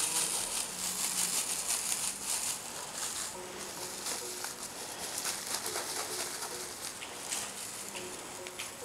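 Rustling of a cat wand toy's streamers as it is waved and dangled over kittens. The rustling is thick for the first few seconds, then comes in scattered short rustles.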